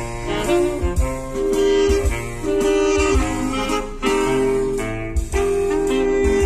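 Saxophone instrumental music played back through a car's aftermarket 3-way speaker system driven by a Musway M6 V2 DSP processor: held sax notes over deep bass hits.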